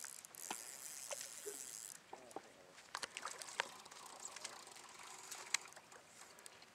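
Faint light splashes and taps as a hooked carp is drawn to the surface toward a landing net, over a high hiss that stops about two seconds in.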